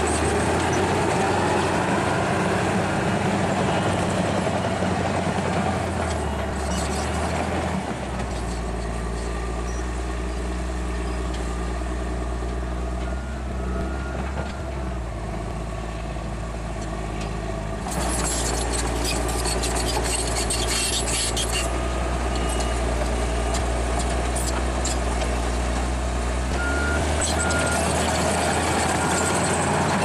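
Crawler bulldozer's diesel engine running as it pushes and grades soil. The engine note drops to a lower, deeper pitch for about ten seconds from around 8 s, then rises again. Soon after it rises there is a spell of rapid metallic clicking and clanking.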